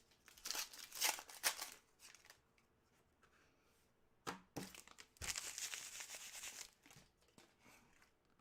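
Trading card packs being ripped open, the wrappers crinkling, with a couple of sharp clicks from handling. A longer tear comes about five seconds in.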